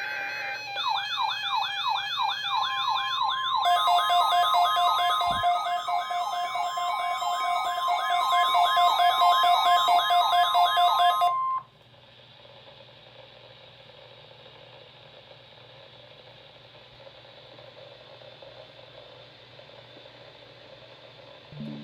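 Several weather radio receivers sounding their alert alarms at once for a Required Weekly Test: overlapping warbling tones repeating several times a second, joined by a steady tone and rapid beeping. All cut off together about 11 seconds in, leaving a faint steady hiss.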